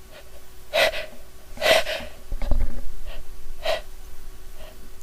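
A woman's gasping in-breaths as a sneeze builds: three sharp, noisy gasps, with a dull low bump near the middle. The tickle comes from sniffing a sneeze-inducing soap.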